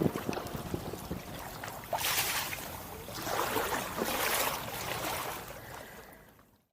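Kayak paddle strokes splashing in canal water, with two stronger splashing strokes about two and three and a half seconds in, fading out near the end.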